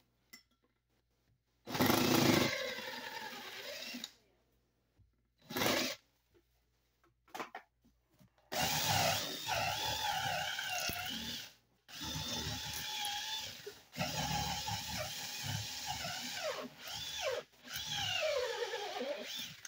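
Cordless drill boring into a wooden sill plate in about six bursts, short ones at first and longer runs in the second half, the motor whine wavering as the trigger and the bit's load change. Its pitch falls away as the drill winds down near the end.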